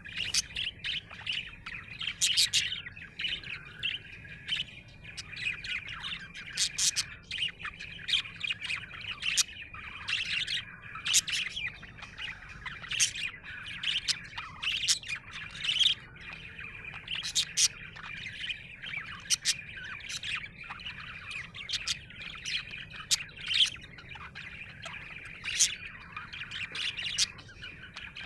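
Budgerigar chirping and chattering continuously, a busy warble broken by many short, sharp chirps.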